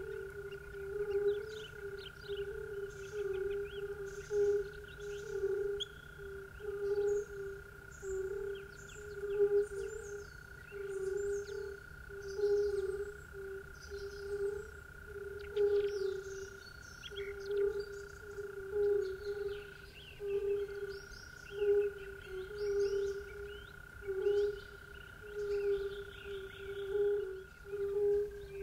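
Frogs calling in a rhythmic chorus, about one pulse of croaks a second, over a steady high drone with scattered short high chirps.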